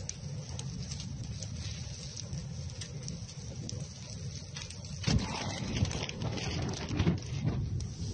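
Fire burning in the open with scattered crackles over a steady low rumble of wind on the microphone; from about five seconds in, louder irregular thumps break in.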